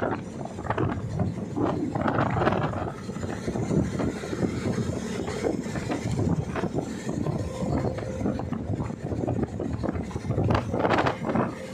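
Wooden passenger boat under way on open water: its engine runs steadily beneath a continuous rushing noise, with gusts of wind on the microphone near the start and end.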